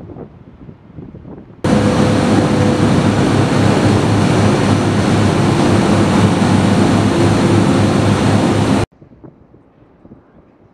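Heavy machinery running: a loud, steady rushing noise over a low hum, which starts abruptly about a second and a half in and cuts off shortly before the end. Faint wind noise before and after it.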